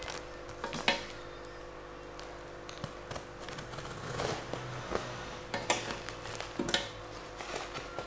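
Scissors cutting through packing tape and cardboard on a parcel: irregular snips, scrapes and crackles of tape and card, over a faint steady hum.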